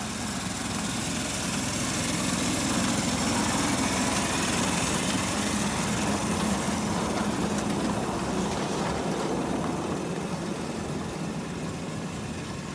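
Small 7¼-inch gauge locomotive's engine running as it approaches, growing louder to a peak about halfway through and then fading as it passes.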